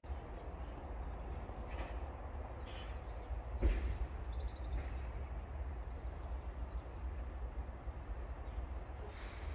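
Quiet outdoor background: a steady low rumble with a few faint bird chirps, and one soft knock about three and a half seconds in.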